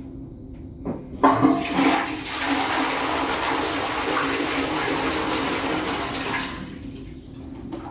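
Toilet flushing: a click, then about a second in a sudden rush of water that runs steadily for about five seconds and dies away near the end into a quieter trickle.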